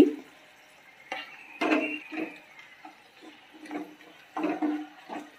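Kitchen utensils knocking and scraping against a non-stick frying pan: a series of short, irregularly spaced knocks, each with a brief low ring. Chilli and turmeric powders are being added to hot oil with garlic and chillies.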